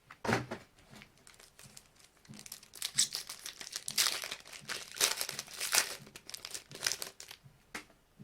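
A 2012-13 Panini Brilliance basketball card pack's wrapper being torn open and crinkled by hand, in a run of irregular crackling bursts.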